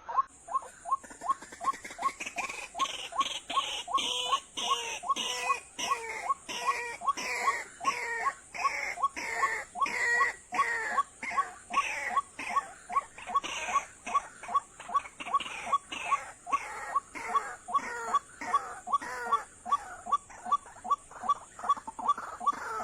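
White-breasted waterhens calling: a rapid, repeated 'ruak-ruak' of pitched calls about twice a second, with hoarse falling notes mixed in. A faint steady high-pitched whine runs underneath.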